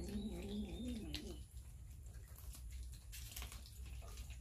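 A cat growling over raw fish, a low wavering growl that rises and falls a few times a second and stops about a second and a half in. Faint scattered clicks of cats chewing fish follow.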